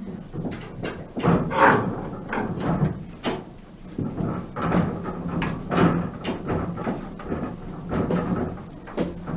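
Farm animals calling in a series of short, loud calls mixed with knocks and thuds, over a steady low hum.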